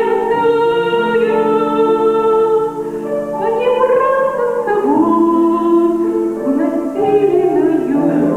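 A woman singing a slow song in long held notes that slide between pitches, over instrumental accompaniment.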